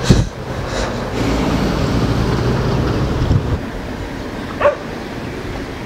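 A dog barking: two short, high yelps about a second apart near the end. Before them there is a thump at the very start and then a steady low rumble.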